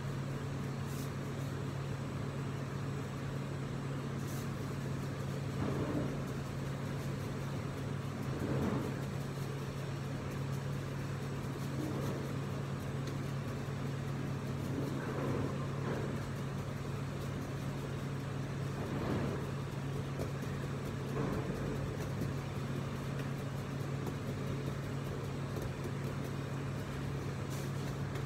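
Steady low hum of kitchen machinery, with a few faint, brief sounds every few seconds.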